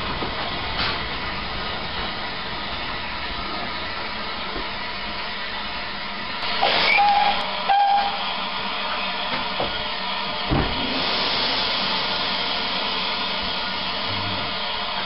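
Bagnall 0-4-0 saddle-tank steam locomotive hissing steadily, with two short whistle toots about halfway through. A thump follows a few seconds later, and then the hiss grows stronger.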